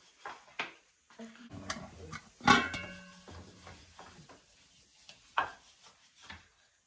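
Stainless-steel steamer tiers and dishes clinking and knocking, with one loud metallic clang about two and a half seconds in that rings on briefly.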